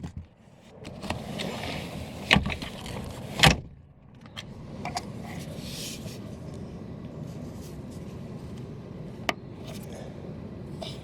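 A few sharp knocks and clicks from plastic car interior trim being handled, the loudest about three and a half seconds in, with a fainter click near the end.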